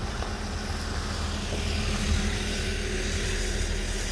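Steady mechanical hum with a low rumble, like a motor or engine running.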